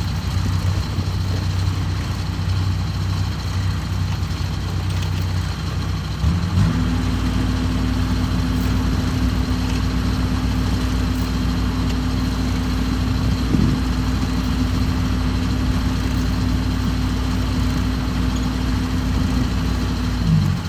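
Rice combine harvester's diesel engine running steadily, revving up about six seconds in, holding at the higher speed, then dropping back down near the end.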